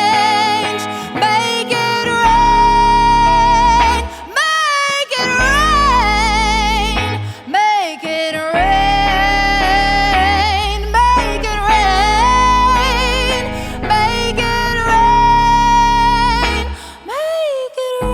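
A female singer holding long, melismatic notes with strong vibrato over a sustained low instrumental accompaniment.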